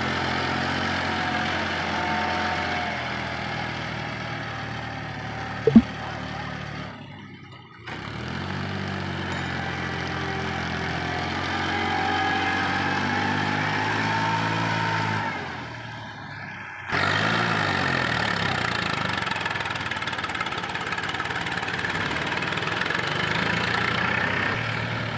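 Eicher 480 tractor's diesel engine running under load while pulling a trailer of soil through soft mud, its speed rising and falling. There is a single sharp knock about six seconds in, and the engine sound drops out briefly twice.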